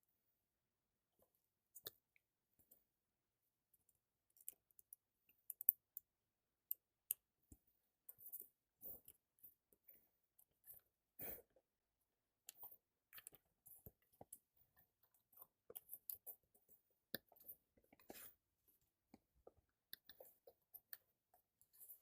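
Faint, scattered clicks and short rustles of a graphics card's retail packaging being handled and opened, busier in the second half.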